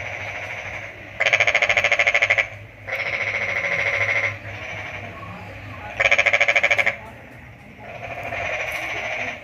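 Homemade battery-powered welder's rod electrode arcing against the clamped workpiece: a fast, crackling buzz that comes in bursts of about a second each as the rod touches and lifts, loudest about a second in and again about six seconds in.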